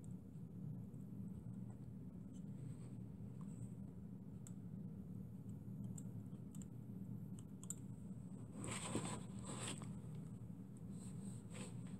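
Faint handling noises on a workbench: scattered light clicks, then brief scraping at about nine seconds and again near the end as the miniature engine's wooden base is turned and slid on the bench. A low steady hum lies underneath.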